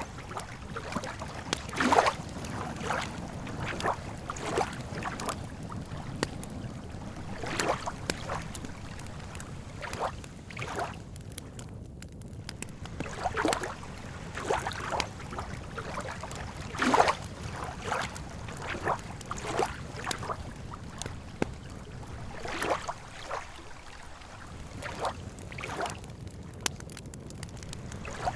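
Lake water lapping at the shore in small irregular splashes, roughly one every second or so, over a steady background hiss.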